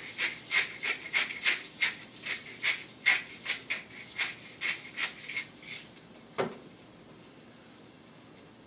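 Hand salt grinder twisted over a pan of onions: a run of short scratchy grinding strokes, about three a second, for about six seconds, then a single knock.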